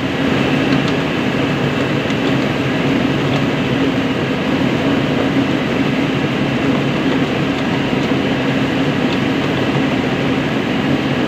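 Small village rice mill running steadily, its motor and milling machinery giving a loud, constant hum over a dense mechanical rattle.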